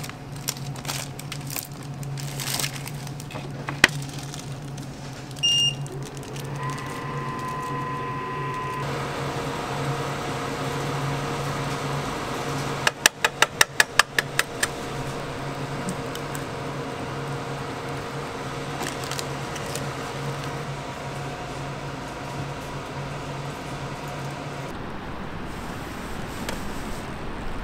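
Convenience-store ramyeon cooking machine with induction hobs running with a steady electrical hum. Electronic beeps sound, one short and one longer held beep, and about halfway through comes a quick run of about ten clicks. The hum stops near the end.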